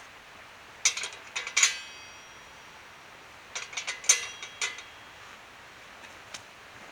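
Sharp metallic clicks and clinks with a brief bright ring, in two short clusters about three seconds apart.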